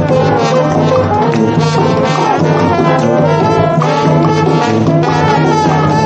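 Trombones playing a tune together, loud, with sustained low notes under the melody.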